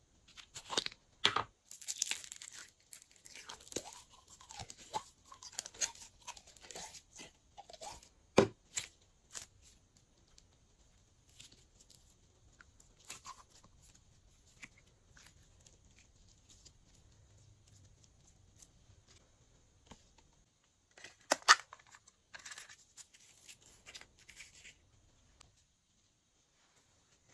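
Hands working glossy slime, pulling and squishing it with sticky crackling and popping. The sound comes in two busy stretches, through the first ten seconds and again about twenty-one seconds in, with quiet handling between them.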